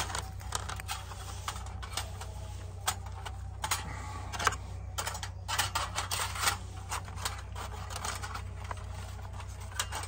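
Irregular light clicks, taps and knocks of metal camping cookware being handled, over a steady low hum.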